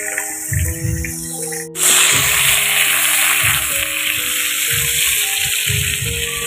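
Background music with a steady low beat; about two seconds in, a loud, steady sizzle starts as eggplant and potato pieces fry in hot oil in a wok.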